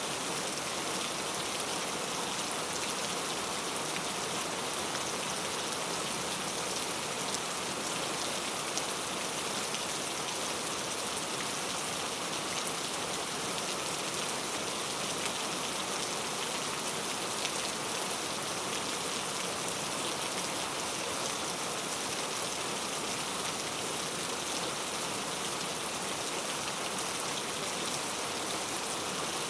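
Heavy rain falling steadily: a dense, even hiss flecked with the fine patter of countless drops, unchanging throughout.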